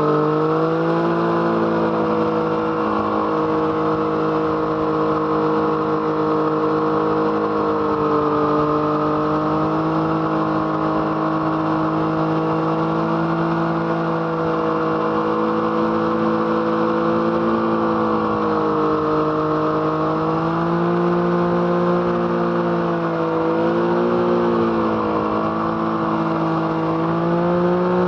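Yamaha MT-09's 847 cc inline-three engine running through an Arrow Thunder exhaust at a steady cruise. The engine pitch holds fairly level, with small rises and dips in the last third.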